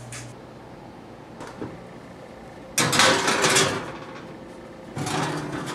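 A metal baking sheet sliding and scraping onto a wire oven rack: about a second of loud scraping midway, then a shorter scrape near the end.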